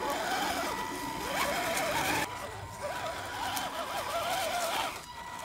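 Axial SCX10 RC crawler's small electric motor and gearbox whining, the pitch rising and falling with the throttle as it crawls over rocks. The sound changes abruptly about two seconds in.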